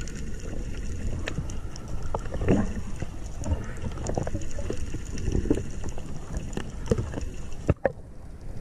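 Underwater action-camera audio: a low rushing water noise with scattered clicks and knocks while a diver handles a speared giant trevally. The noise drops away for about the last second.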